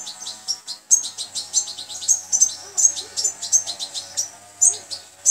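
A European goldfinch nestling begging for food as it is hand-fed from a syringe: rapid high chirps, several a second.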